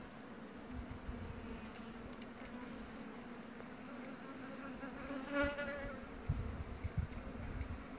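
Yellow-faced bumblebee (Bombus vosnesenskii) queen buzzing: a steady low hum, swelling into a brief louder, fuller buzz about five and a half seconds in. A few low thumps come near the end.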